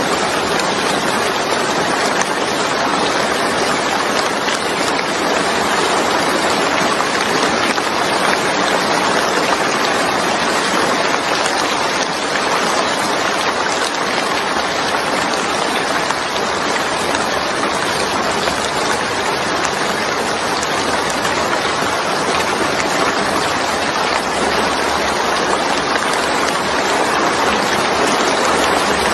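Steady rain falling on a wet surface: an even hiss of many drops that holds unchanged throughout.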